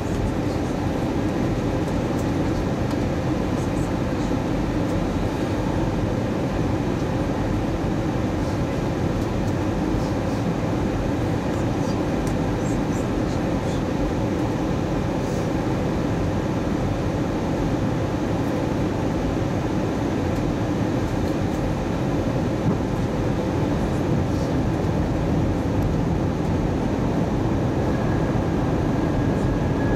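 Steady cabin noise inside an Airbus A320 on descent: the even rush of engines and airflow heard through the cabin, unchanging throughout. A faint high tone comes in near the end.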